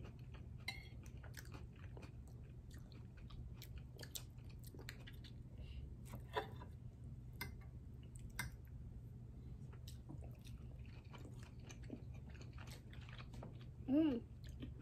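Close-miked chewing of lobster and salmon: soft, wet mouth clicks and smacks scattered irregularly, with a brief hummed voice sound near the end.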